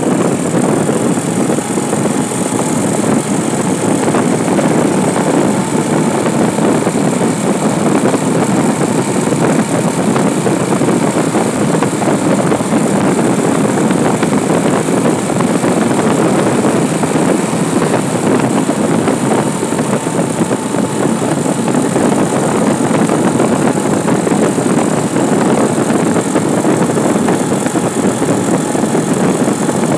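Steady engine and road noise of a vehicle driving along an asphalt road, heard from on board.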